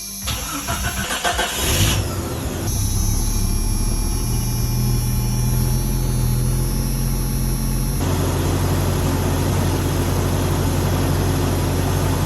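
1994 Jeep Cherokee XJ engine cranking on its freshly replaced battery, catching about two seconds in, then running steadily at idle.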